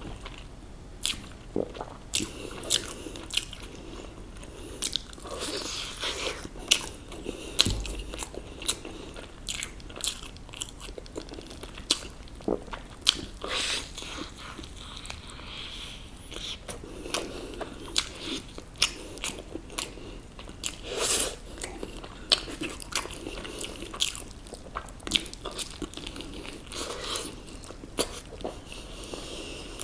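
Close-up crunching and chewing of crispy KFC fried chicken: irregular crisp crackles as the coated skin is bitten and chewed, with a few longer crunchy stretches.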